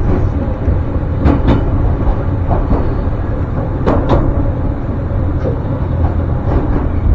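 Electric commuter train running, heard from on board: a steady rumble of wheels and motors. Twice there is a quick double clack as the wheels pass over rail joints.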